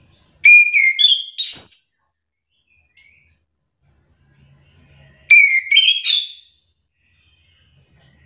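Chestnut-capped thrush (anis kembang) singing two short, loud whistled phrases about five seconds apart. Each phrase climbs in pitch over a second or so.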